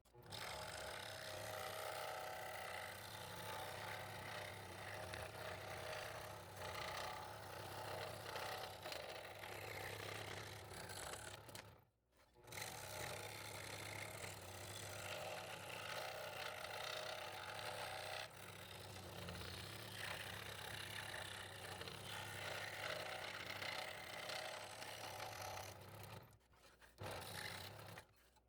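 Scroll saw running and cutting thin wood fretwork: a steady, busy rasp over the low hum of the saw's motor. It breaks off abruptly twice.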